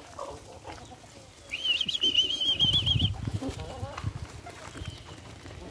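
Pigeons' wings flapping and beating as two pigeons fight among a feeding flock, loudest from about two and a half to three and a half seconds in. A high, rapidly warbling whistle sounds over it from about a second and a half to three seconds in.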